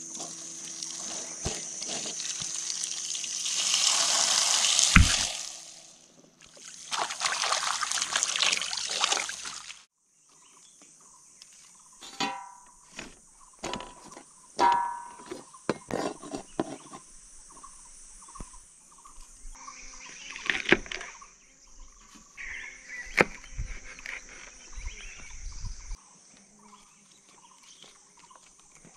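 Water from an outdoor tap splashing into a steel bowl as a bunch of flowering chive stalks is rinsed, loud for the first ten seconds with a brief break midway. Then comes a series of knife cuts and taps on a cutting board as the stalks are chopped, over a steady high-pitched insect drone.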